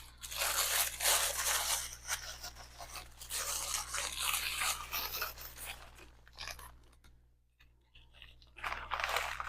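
A jewelry wrapper crinkling and rustling as a bracelet is slid back into it, for about six seconds, then a short rustle again near the end.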